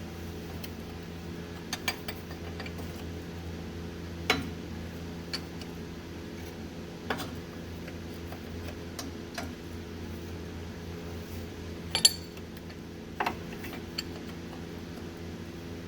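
Irregular metallic clinks and taps of a wrench working a starter mounting bolt loose, about nine in all, the loudest near the end, over a steady low hum.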